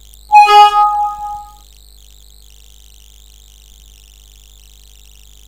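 Windows 7 alert chime: a single bright tone with overtones that rings out and fades over about a second. It is the warning sound Windows plays when it reports that the computer is running slowly and offers to switch the colour scheme.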